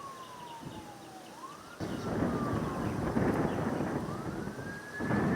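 Emergency vehicle siren wailing, its pitch sliding slowly down and up in long sweeps, over a rushing noise that grows louder about two seconds in.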